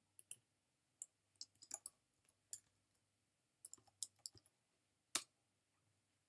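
Faint computer keyboard keystrokes: a word is typed in short, irregular clicks, ending with a louder single keystroke about five seconds in.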